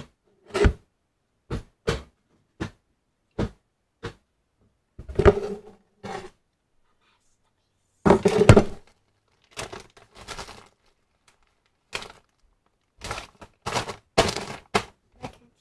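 Irregular knocks and thumps close to the microphone, some single and some in quick clusters, with short silences between them.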